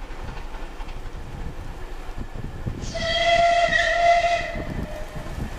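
Steam locomotive running towards the listener, sounding its whistle once for nearly two seconds about three seconds in, over the rumble of the train.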